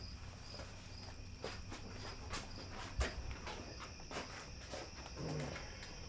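Crickets chirping in a steady pulsing trill, about two pulses a second, with scattered footsteps. The loudest is a sharp thud about three seconds in.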